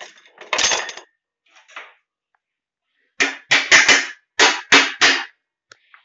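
Metal cutlery clattering into a dishwasher's plastic cutlery basket: a few clinks about half a second in, then a quick run of about seven sharp clatters between about three and five seconds in.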